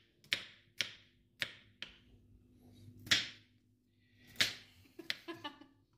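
Kitchen knife cutting on a cutting board: four sharp strokes about half a second apart, then a few more irregular knocks, with light clinks near the end.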